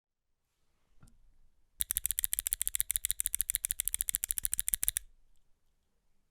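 Everglide SK87 mechanical keyboard with lubed Alpaca silent switches, a carbon plate and MDA Big Bone PBT keycaps being typed on fast. A faint single keystroke about a second in, then a rapid, even run of about ten keystrokes a second lasting some three seconds.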